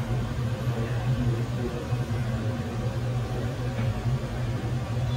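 Steady low machine hum with a light hiss above it.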